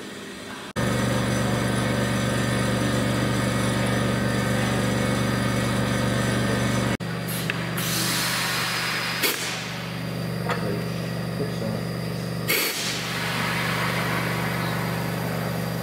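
Air brake test on Class 84 001 electric locomotive: bursts of compressed air hissing out of the brake equipment over a steady mechanical hum. Most of the hissing comes in the second half, with a long release around the middle and sharp spurts a couple of seconds later and again near the end.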